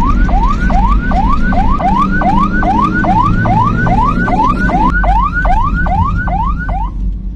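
Ambulance's electronic siren in yelp mode: a rapid rising wail that repeats about three times a second over the low rumble of the moving vehicle, cutting off near the end.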